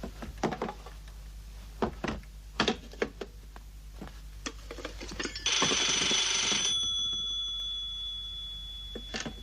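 Scattered clicks and knocks of someone handling a telephone, then about five and a half seconds in the telephone's bell rings once: a loud jangle of about a second whose ring dies away slowly.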